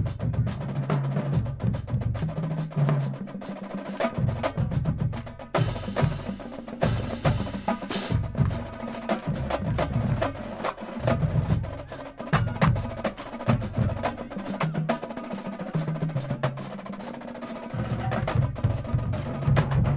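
College marching drumline playing a fast cadence: snare drums and quads in rapid stick strokes and rim clicks over pitched bass drums sounding low notes, with cymbal crashes about six and eight seconds in.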